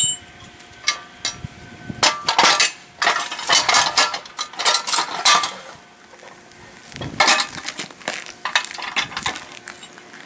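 Metal clinking and scraping as a boat hoist's telescoping leg is shifted inside its column and a pin is worked toward the lined-up holes. The clinks and knocks come in several separate flurries.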